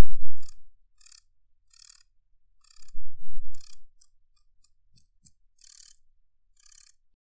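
Sound effect of a spider attacking and eating a cricket: about a dozen short, crackling crunches at irregular intervals. Two loud, deep rumbles about a second long come at the start and about three seconds in. The sound stops abruptly about seven seconds in.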